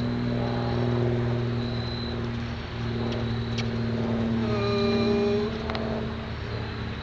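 A steady low mechanical hum, like a running motor or engine, with a brief higher tone about two-thirds of the way through.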